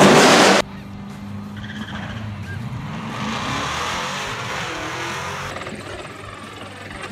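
LS V8 in a Mazda B2200 pickup running hard at full throttle on a chassis dyno, cutting off suddenly about half a second in. Then a much quieter stretch of distant engine and race-track noise.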